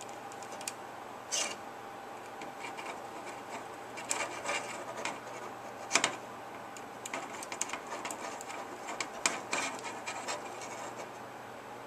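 Hands working the plastic blade grips, screws and nuts of a small RC helicopter's rotor head: scattered light rubbing and small clicks, with sharper clicks about a second and a half in and about six seconds in.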